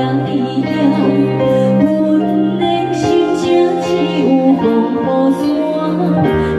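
A woman singing a lyrical Hokkien song into a microphone over live band accompaniment, with held bass notes under the melody.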